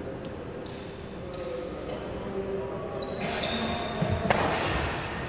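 Badminton rally: rackets striking a shuttlecock, with players' footwork on the court floor. The sharpest hit comes about four seconds in.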